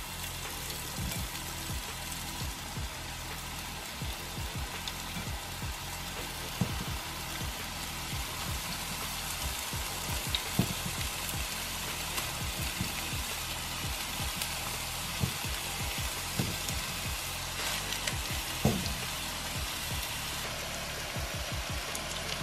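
Raw meatballs sizzling in hot oil in a nonstick pan: a steady frying hiss, with occasional light knocks as more meatballs are set into the pan by hand.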